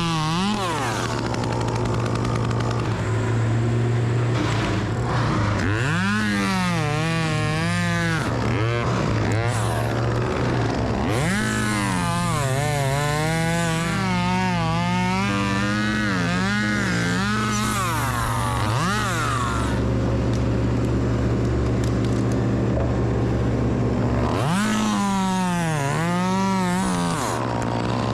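Chainsaw revving up and cutting in several separate bursts, about 6, 11 and 24 seconds in. Its pitch wavers and dips as the chain loads in the wood. A steady low engine drone runs beneath throughout.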